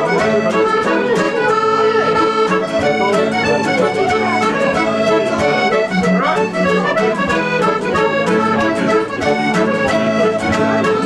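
Piano accordion playing a tune, with held chords under the melody and a steady, even beat.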